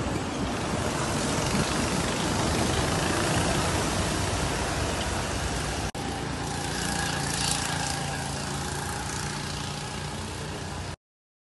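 Go-kart engines running on a track: a steady engine drone with a brief break about six seconds in, then continuing until it cuts off near the end.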